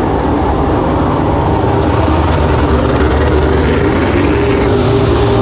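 MotoGP racing motorcycles' four-cylinder engines running at a steady pitch as the bikes ride out past the pit building at the opening of the pit lane, growing slightly louder near the end.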